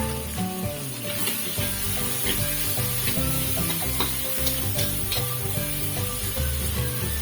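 Food frying in oil in a pan, a steady sizzle, with short clicks and scrapes of a spatula stirring.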